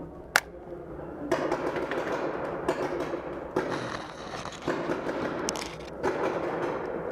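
Paintballs striking a handheld riot shield in rapid volleys, a dense rattle of hits in several bursts after one sharp crack near the start, with paintball markers firing.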